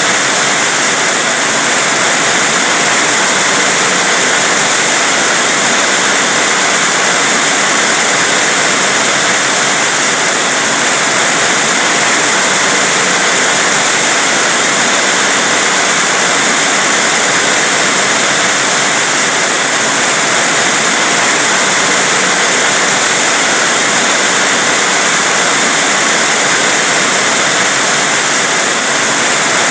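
Heavy rain falling in a steady, dense hiss with no breaks or separate drops standing out.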